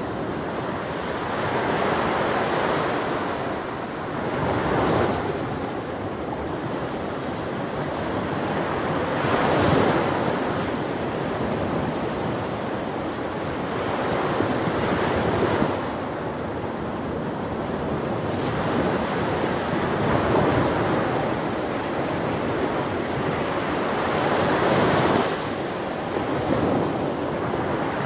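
Ocean waves breaking on a beach: a steady rush of surf that swells with each breaking wave about every five seconds, then washes back down.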